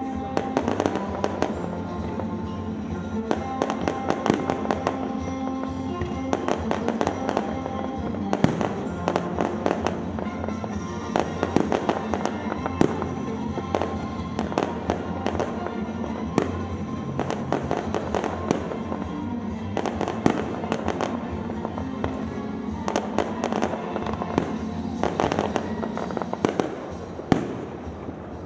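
Fireworks show: aerial shells bursting in a rapid, irregular series of sharp bangs and crackles, over music.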